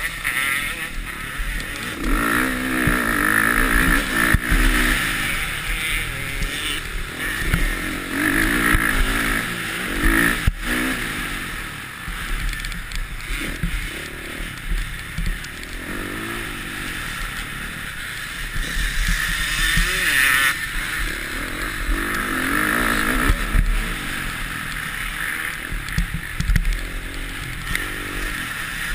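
Motocross bike engine running hard, its revs repeatedly rising and falling as the rider accelerates and shifts along the track. A single sharp knock about ten seconds in.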